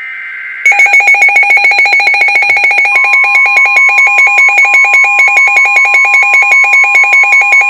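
NOAA Weather Radio alert sequence. It opens with the end of a SAME digital header burst, a short two-tone data screech. Under a second in, a loud, fast-pulsing electronic alarm starts, and about three seconds in the steady 1050 Hz warning alert tone joins it, signalling that a new warning is about to be read.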